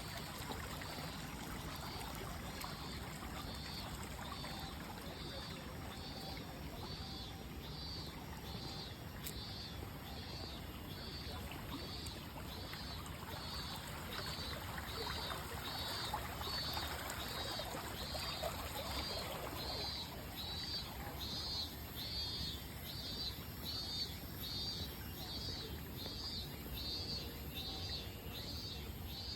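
Water of the Lake Biwa Canal flowing in a steady murmur, with a cicada calling over it in an even pulsing rhythm, about three pulses every two seconds.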